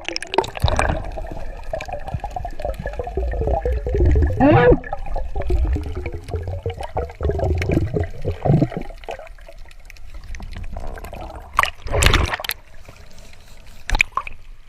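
Water gurgling and bubbling around the microphone, with wavering bubble sounds and a low rumble, and a short loud burst of water about twelve seconds in.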